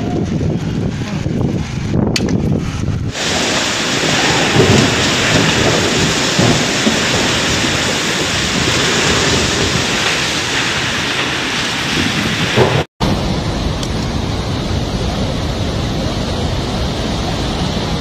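Storm wind and heavy driving rain as a loud, even rush of noise, with wind buffeting the microphone. The sound changes abruptly about three seconds in and again after a momentary dropout near the end, where it turns into the rushing of a flooded river.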